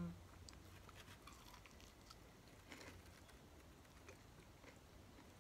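Near silence: faint room tone with a few scattered small clicks.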